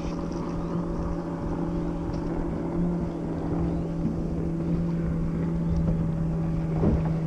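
Bass boat motor running with a steady hum, with wind buffeting the microphone.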